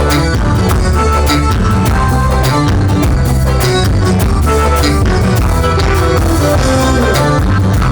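Live band music at full level: a drum kit keeps a steady beat under bass, guitar and melodic lines.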